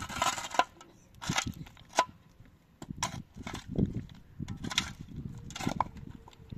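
A long-handled digging tool striking and scraping into stony soil, about eight sharp strikes at roughly one a second, some with a short ringing clink.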